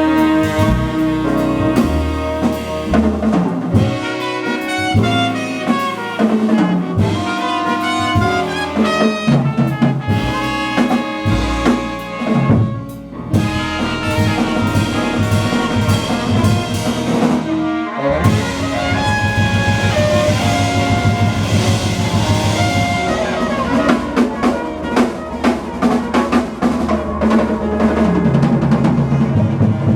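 Hard-bop jazz band playing: brass horns over drum kit, with brief breaks in the sound about halfway through.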